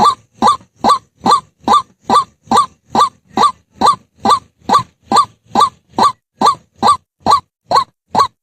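White-breasted waterhen calling: a long, monotonous series of short, loud notes repeated evenly, about two and a half a second.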